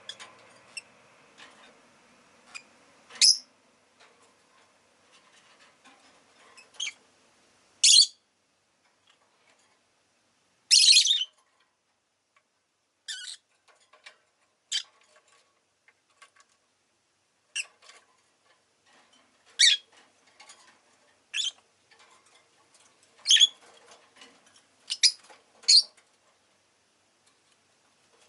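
Rosy-faced lovebird giving short, sharp, high chirps and squawks at irregular intervals, about fourteen calls with gaps of a second or more between them.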